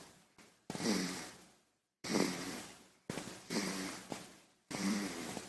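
Baby snoring: a run of short snores, roughly one a second, each starting sharply and fading away.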